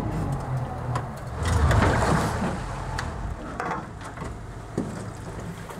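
Small boat's motor running with a steady low hum, growing louder for about a second a couple of seconds in, with a few light knocks.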